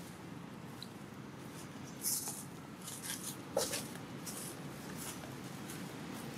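Dry fallen leaves crackling and rustling as monkeys move and pick through the leaf litter: a string of short crackles starting about two seconds in, over steady low background noise.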